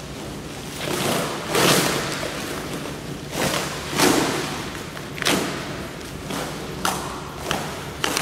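Plastic wrapping and cardboard packing being pulled and torn off an equipment part by hand: irregular crinkling, ripping rustles about every second, with some handling thuds.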